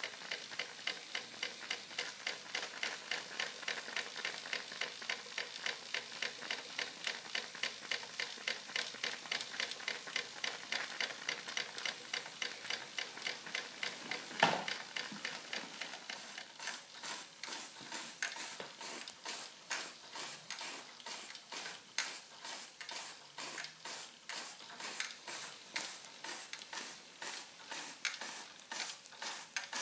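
Fleischmann 135/2 toy steam engine running, its cylinder exhausting steam in a rhythmic chuff with a hiss and mechanical clicking on each stroke. The beat slows from about three a second to about two a second after a brief louder sound about halfway through.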